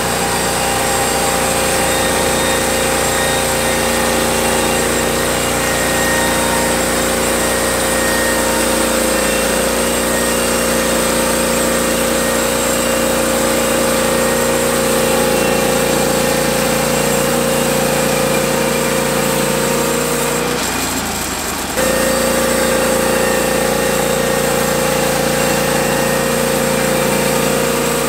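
Norwood HD36V2 portable bandsaw mill running steadily, its gas engine at high speed while sawing lumber. The sound briefly drops and then picks up again about three quarters of the way through.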